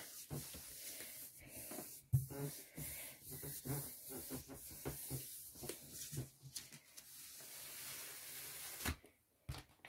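Hands rubbing and smoothing a sheet of paper pressed over a gel printing plate to transfer the print: a faint papery rustle with scattered soft taps. Near the end the paper is peeled off the plate.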